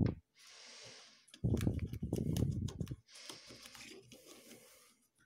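Handling noise of fingers smearing Vaseline around the inside of a LEGO brick box on a wooden table: faint rubbing, with a louder stretch of rubbing and small knocks about a second and a half in that lasts about a second and a half.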